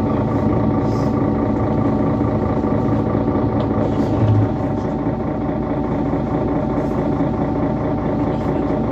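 Mercedes-Benz Citaro C2 city bus with its Euro 5 diesel engine running under way, a steady drone of engine and drivetrain. About halfway through the engine note drops and gets a little quieter.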